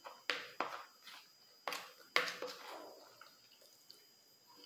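Close-up mukbang eating sounds: a spoon scooping food from a plastic bowl and wet chewing, with four sharp, wet smacks in the first two and a half seconds, then quieter.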